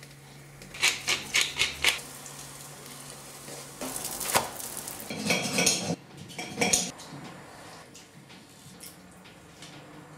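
Kitchen utensils clinking at the stove: a quick run of about six sharp clicks of a spoon against a bowl and pan. Then knife and fork clink and scrape on a plate during a meal, loudest for a few seconds in the middle and sparser ticks near the end.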